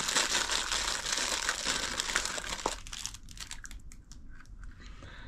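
Packaging crinkling as an item is unwrapped: close, dense crinkling for the first couple of seconds, then thinning to a few scattered crinkles and small clicks.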